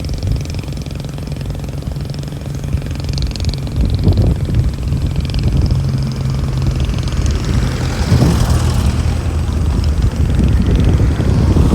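An engine running steadily at a constant pitch, with a few short gusts of noise over it.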